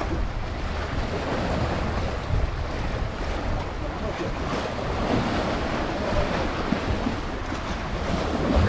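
Steady wind buffeting the microphone, with sea waves washing against the shore.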